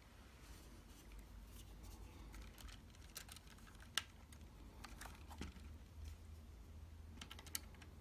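Faint, scattered small clicks and scrapes of copper wires being seated in a wall socket's terminals and an insulated screwdriver working the terminal screws, with one sharper click about halfway through and a few quick ones near the end.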